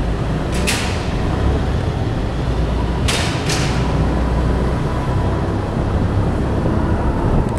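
Steady rumble of motor vehicle traffic, with short hissing bursts about a second in and twice near the middle.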